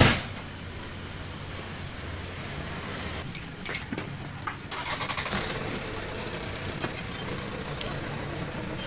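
Steady hum of road traffic and vehicle engines. From about three seconds in, irregular scrapes and clicks come as a blade is drawn across the thick skin of an ocean sunfish.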